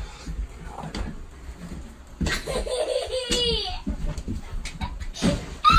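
Young child laughing and squealing: one high, sliding burst about two seconds in and a shorter one near the end.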